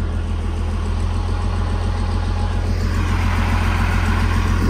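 Diesel engine of a motor grader running steadily under load while it tows a stuck caravan on a rope. There is a deep hum throughout, and the engine gets a little louder and rougher from about three seconds in.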